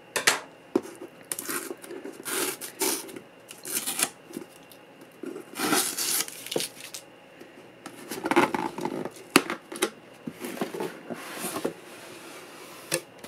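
Cardboard Loot Crate box being opened by hand: tearing and rustling of the box and its packing, in a string of irregular short rustles and clicks.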